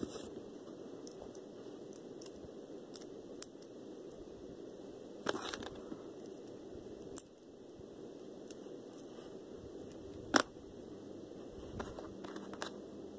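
Handling noises from an unboxing: scattered clicks and light plastic rustles over a steady hiss, with sharper clicks about five, seven and ten seconds in.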